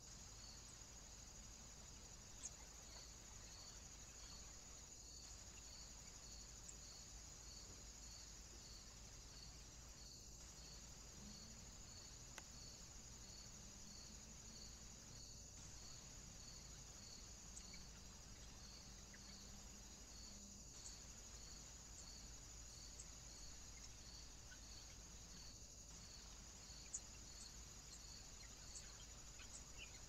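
Faint, steady, high-pitched chirring of insects such as crickets, with a regular pulse repeating throughout, and a few faint clicks.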